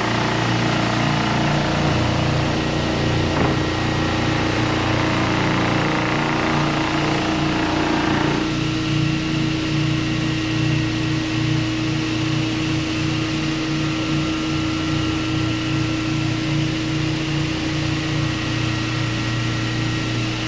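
Hyper Orbit random-orbit floor sander running steadily across a wood floor with a constant hum. A harsher, rougher noise in the first eight seconds or so eases off partway through. The speaker says rattling was heard while the machine ran over part of the floor, coming from loose rows of flooring that were never nailed down.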